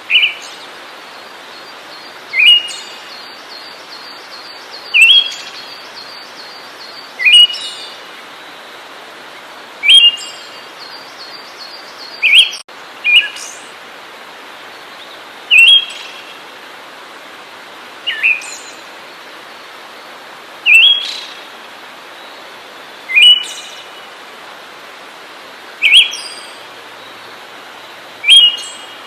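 A songbird repeating one short, sharp, upward-sweeping call about every two and a half seconds over a steady background hiss, with a faint rapid ticking higher up at times.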